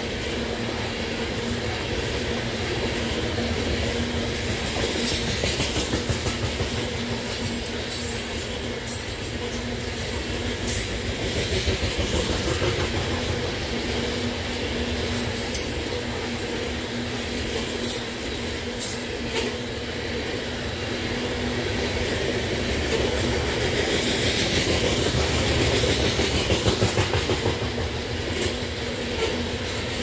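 Loaded coal train cars rolling past: a steady rumble of steel wheels on rail, with irregular clacking as the wheels cross rail joints.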